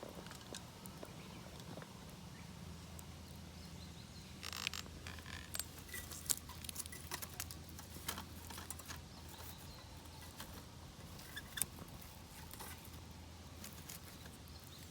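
Small twig fire crackling with scattered sharp pops in a Bushbox pocket stove, over a steady low hum from the pot of water on it, which has just begun to simmer.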